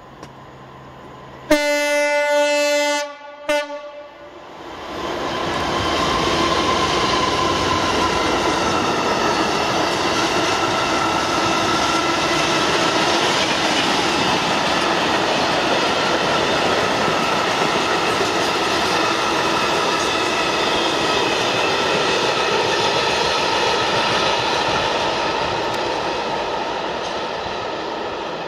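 Colas Rail Class 66 diesel locomotive 66846 sounds its horn, one long blast and then a short one. It passes with its two-stroke V12 diesel engine running, followed by a long train of freight wagons clattering over the rail joints. The noise eases slightly near the end.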